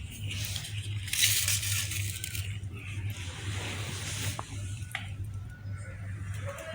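Wet chewing and tearing sounds of chicken being eaten close to the microphone, with a steady low hum underneath.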